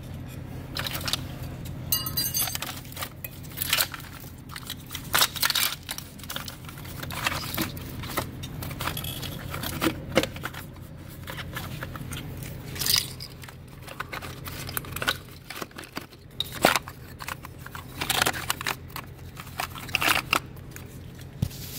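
Plastic engine wiring harness being worked loose by hand: irregular clicks of connectors and clips and crackling rustles of corrugated plastic loom, over a steady low hum.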